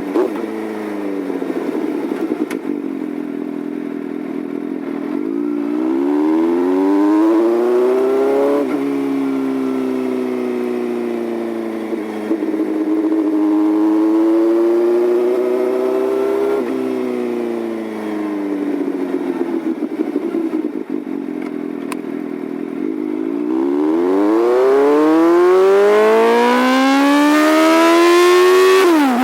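Suzuki GSR750 inline-four running through an LCI PARTS GP titanium slip-on silencer with the baffle removed, while the bike is ridden. The exhaust note climbs as the rider accelerates, falls back sharply a couple of times, then makes a long climb over the last few seconds before dropping again right at the end.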